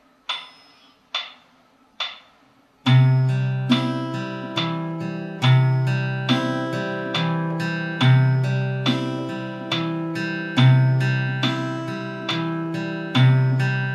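Three evenly spaced clicks count in, then an acoustic guitar is fingerpicked in a broken-chord pattern in 3/4 / 6/8 time. A strong low bass note opens each bar, about every two and a half seconds, under the picked upper strings.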